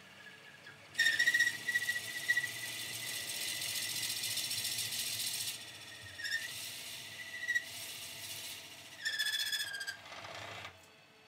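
Lathe tool cutting inside the mouth of a spinning cypress vase: a hissing scrape with a steady high squeal, from about a second in to about five and a half seconds, weaker for a few seconds, then a short burst again near the end.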